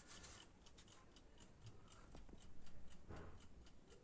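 Near silence with faint, rapid ticking clicks, and a brief soft rustle between about two and a half and three seconds in.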